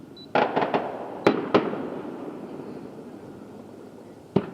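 Aerial fireworks shells bursting: a quick run of bangs about half a second in, two more sharp bangs around a second and a half, and a single bang near the end, each trailing off in a rolling echo.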